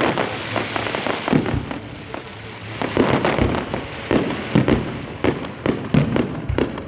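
Fireworks display: a rapid run of sharp bangs, several a second, over a steady crackling hiss, easing off for about a second in the middle before the bangs pick up again.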